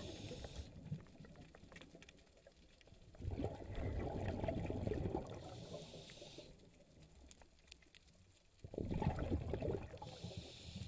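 Scuba diver breathing through a regulator underwater: two bursts of exhaled bubbles about five seconds apart, each with a short hiss of air near its end.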